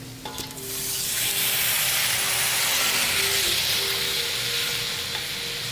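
Stock poured into a hot wok of fried minced beef and chili bean paste, setting off a loud, steady sizzling hiss that builds up within the first second and holds.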